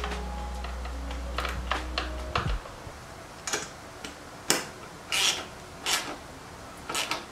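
Ratchet wrench on a long socket extension tightening the exhaust header nuts at a dirt bike's cylinder head, with a short ratcheting rasp about once a second. A steady low hum stops abruptly about two and a half seconds in.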